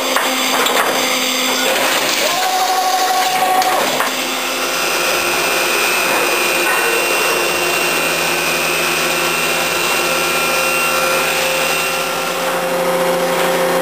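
Makino A-77 CNC horizontal machining center cutting metal: the 40 hp spindle runs with a steady whine of several held tones over cutting and coolant noise. The first few seconds are busier, with a brief wavering tone, before the sound settles about four seconds in.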